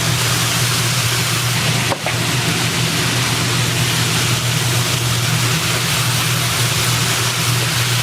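Steady, loud kitchen roar with a constant low hum, dipping briefly about two seconds in.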